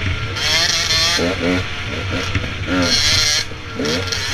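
Dirt bike engines running on the move, their pitch climbing and dropping again and again as the throttle is opened and closed, under a steady rush of wind on the microphone.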